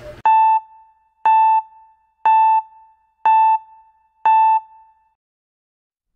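Electronic countdown beeps: five identical mid-pitched beeps, one a second, each ringing off briefly, with dead silence between them, then a single higher-pitched ding right at the end.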